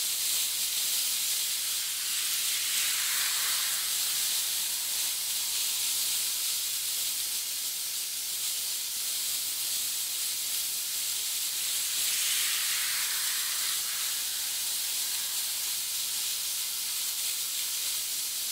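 Sea surf washing on the shore, heard as a steady hiss that swells twice, about three seconds in and again about twelve seconds in.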